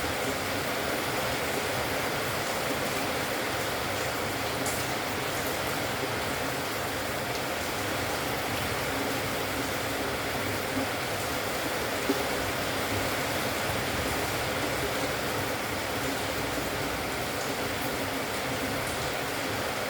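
Steady hiss of background noise with no clear bird calls, and a brief tick about twelve seconds in.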